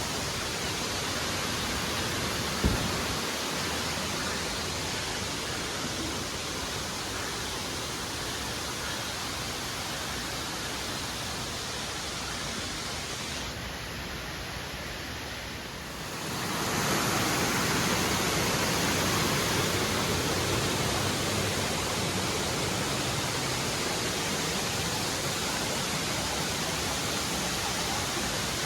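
Steady rush of a waterfall's falling water. It fades briefly a little past halfway and comes back louder, with one sharp click a few seconds in.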